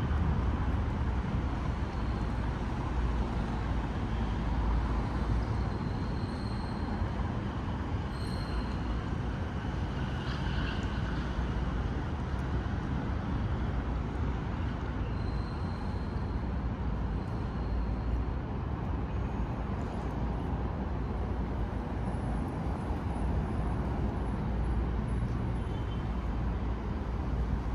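Steady city street ambience of road traffic passing, with a constant low rumble.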